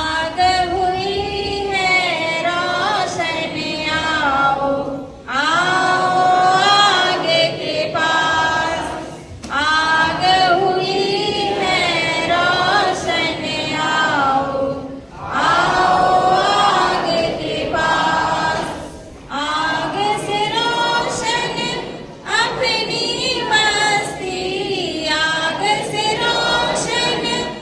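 A group of young voices singing together, with short pauses every few seconds between phrases.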